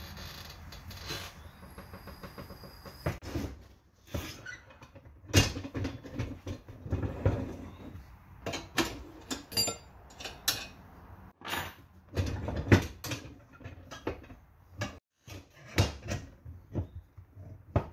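Irregular clunks, knocks and rubbing as a deflated motorcycle front tire is handled on a manual tire changer and its bead-breaker arm is set against the tire to break the bead. A few sharp knocks stand out, about five seconds in and again near thirteen seconds.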